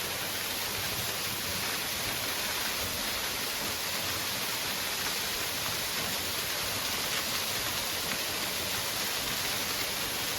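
Waterfall pouring into a pool, a steady, even rush of falling water.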